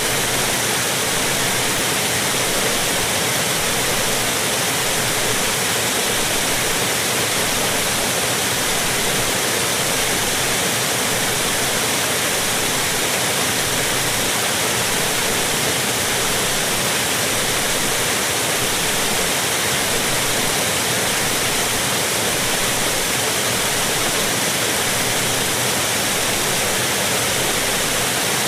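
Large water fountain, water falling and splashing in a steady, unbroken rush.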